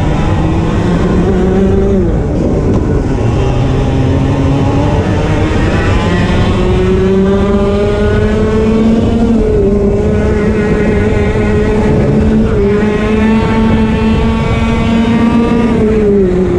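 Onboard sound of a 125cc two-stroke TAG racing kart engine at full throttle. Its pitch drops about two seconds in as it lifts off for a corner, climbs steadily on the following straight, holds high, then falls again near the end for the next corner.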